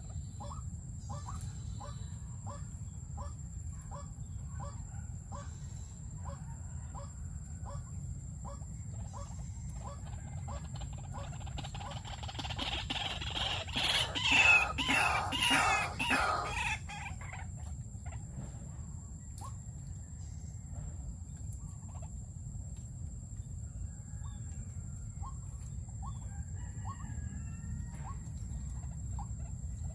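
White-breasted waterhens calling: short clucking notes repeated about twice a second, then a loud burst of harsh, rapid calls lasting several seconds in the middle, then scattered single notes.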